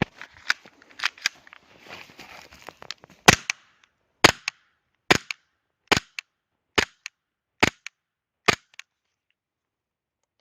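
CZ P-10 C CO2 gas blowback airsoft pistol firing seven shots at a steady pace of a little more than one a second. Each shot is a sharp crack followed by a lighter click. Before the shots come a few seconds of clicking and rustling handling noise.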